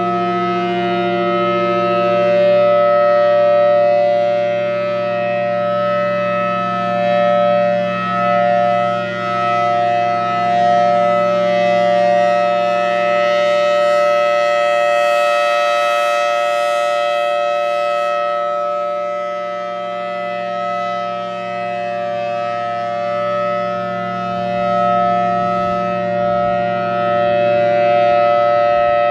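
Federal Signal Thunderbolt 1000T outdoor warning siren sounding its steady alert signal: a loud, unbroken two-note chord that swells and fades as the siren head rotates. A brief hiss joins it about halfway through.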